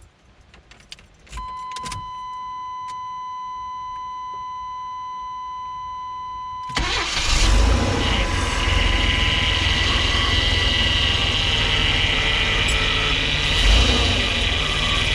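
Keys jangle and a steady electronic warning tone sounds for about five seconds. Then the 1993 Chevy Astro van's 4.3-litre V6 cranks briefly and fires: a test start after a new fuel pump and spider injection assembly. It keeps running with a high rubbing squeal, which the owner suspects is something at the front pulley or a plastic shroud.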